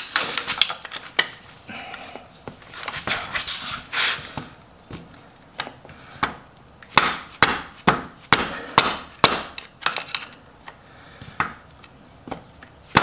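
Irregular clicks, taps and knocks of a screwdriver against the metal engine case, prying at the clutch cover to break its gasket seal. The knocks come thickest after the middle.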